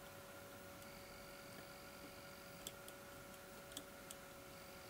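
Near silence with a faint steady hum, broken by three faint small metallic clicks in the second half: a screwdriver working a screw in the frame of a Colt Single Action Army revolver.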